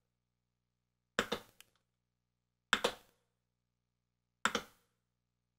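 Three short, sharp clicks about a second and a half apart, each a quick double click, from the controls of an Akai MPC Live as the hand presses and turns its data wheel.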